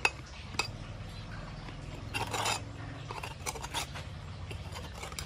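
A blade scraping and tapping on rough concrete as it is pressed through a giant earthworm to cut it into bait pieces: sharp clicks, a short rasping scrape about two seconds in, then a few quick clicks.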